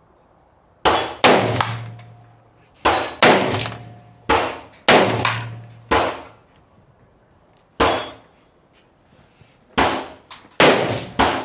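Rifle shots being fired, about a dozen at uneven spacing, some in quick pairs, each sharp crack dying away over about a second.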